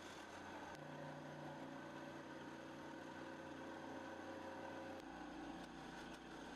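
Scroll saw running steadily as it cuts the teeth of a small wooden gear; its low hum shifts about a second in and again about five seconds in.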